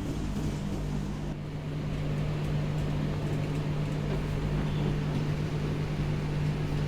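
A steady low mechanical hum over a faint even hiss.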